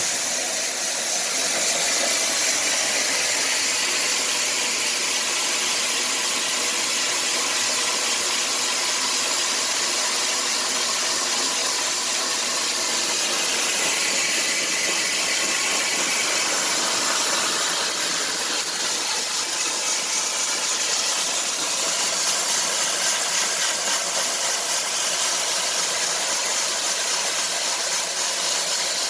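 Chive peeling machine running with a loud, steady hiss of blowing air over a machine hum.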